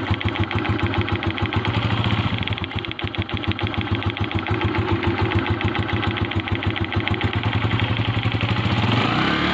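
CG 125 motorcycle's single-cylinder four-stroke engine idling with a steady, even mechanical ticking clatter. The owner took it for the clutch box, but a mechanic puts it down to the camshaft or the rocker-arm pin, not the clutch.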